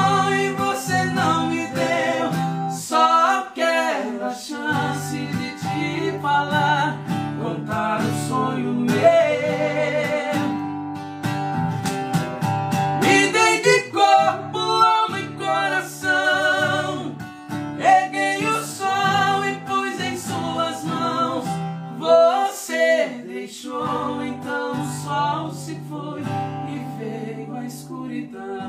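Two men singing a slow duet, accompanied by a strummed and picked acoustic guitar.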